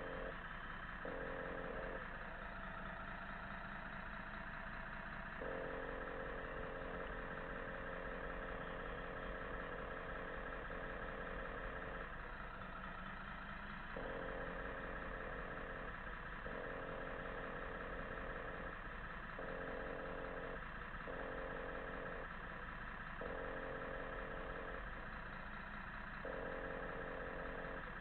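Scale RC truck's electronic diesel-engine sound running steadily like an idling truck, its mid-pitched engine note cutting in and out every one to three seconds.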